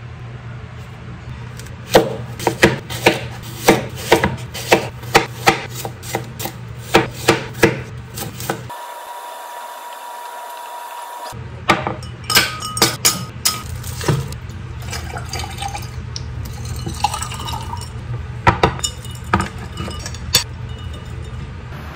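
A knife chopping an apple on a wooden cutting board, a steady run of sharp knocks about two a second. After a short pause come scattered knocks and clinks of apple pieces, a ceramic plate and a fork being handled.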